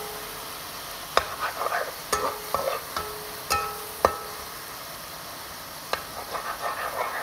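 Chopped tomatoes sizzling in oil in a wok while a metal spatula stirs them, scraping and knocking against the pan several times, some knocks leaving a brief metallic ring.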